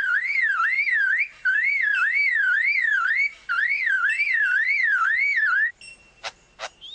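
Superb lyrebird mimicking a car alarm: a whistled pitch warbling up and down about two and a half times a second, in several runs with short breaks. It stops near the end, where two sharp clicks follow.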